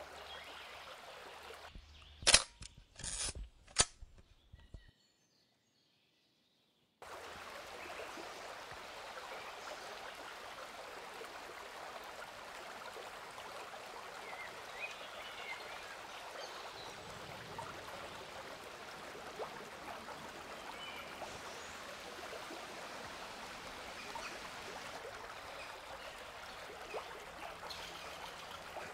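A river flowing, heard as a steady rush of water, with a few faint chirps over it. About two seconds in come three sharp clicks, followed by a couple of seconds of dead silence before the water sound returns.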